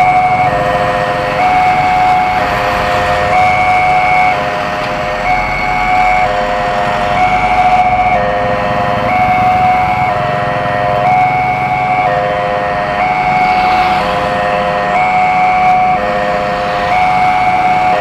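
Railway level-crossing warning siren sounding a two-tone alarm, a high note and a low note alternating about once a second, over the noise of passing street traffic.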